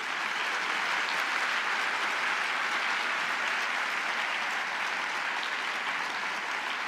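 Audience applauding, a dense steady clapping that holds throughout.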